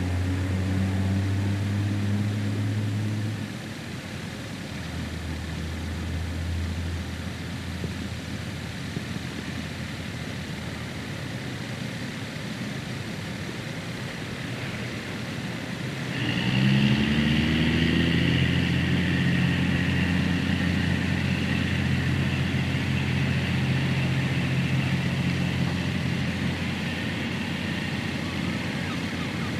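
Boat engines running on the river, heard through an old cine camera's magnetic soundtrack. A steady engine hum fades about three seconds in, then about halfway through an engine revs up and runs on steadily and louder.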